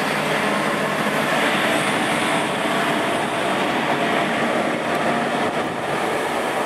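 SNCB class 27 electric locomotive pushing a rake of double-deck coaches past at close range. Its wheels, running gear and traction equipment make a steady, loud running noise with a faint constant hum.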